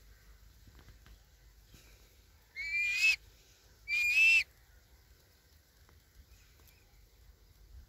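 A kite gives two short, high whistling calls about a second apart, about two and a half seconds in. Each call lasts about half a second and wavers slightly in pitch.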